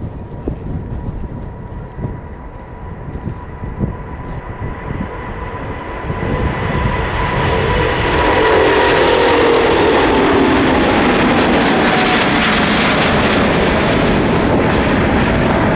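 Airbus A350-900's Rolls-Royce Trent XWB jet engines at takeoff thrust as it departs. A high whine falls slowly in pitch as the roar grows loud about six seconds in and then stays loud.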